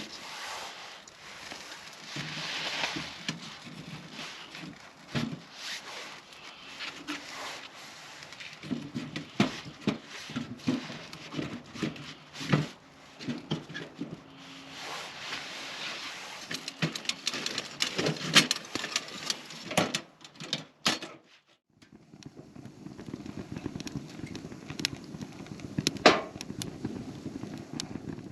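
Irregular knocks, clinks and rustling of camping gear being handled and assembled, with several sharp knocks and a break about three-quarters through where the sound cuts to a new stretch.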